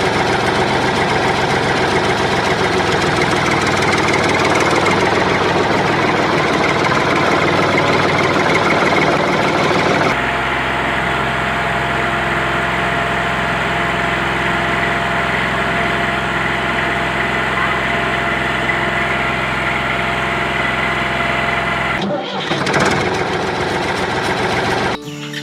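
An engine running steadily. About ten seconds in the sound switches abruptly to a smoother, steadier engine note, and it breaks off briefly near the end.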